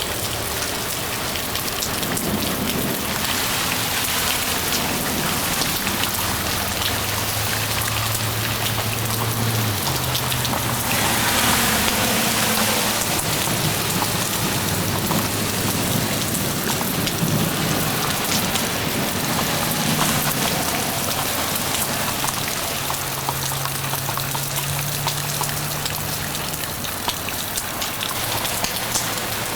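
Heavy rain pouring steadily in a thunderstorm, briefly heavier about a third of the way in, with a low steady hum underneath.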